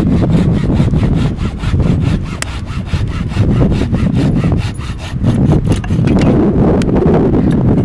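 A hand saw cutting through wood in quick, even back-and-forth strokes, several a second. Heavy wind buffeting the microphone runs underneath as a loud low rumble.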